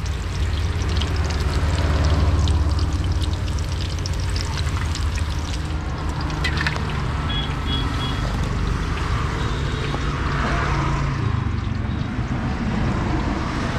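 Slices of patra, stuffed colocasia-leaf rolls, sizzling and crackling in hot frying oil, with many small pops over a steady hiss. A constant low rumble runs underneath.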